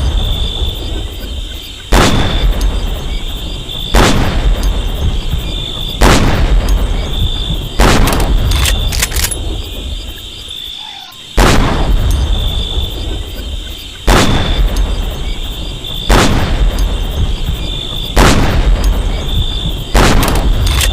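M40A1 bolt-action sniper rifle (7.62×51mm NATO) firing single shots about every two seconds, nine in all, with a longer pause about halfway through. Each shot is followed by a long echoing tail.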